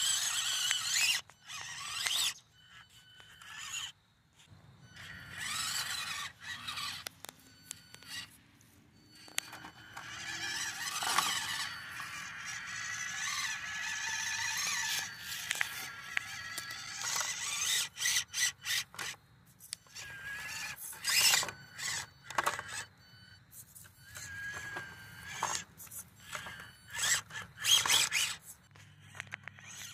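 Axial SCX24 micro RC crawler (1967 Chevrolet C10) whining from its small electric motor and gears in stop-start throttle bursts, with one longer run in the middle, as its tyres scrape over rock.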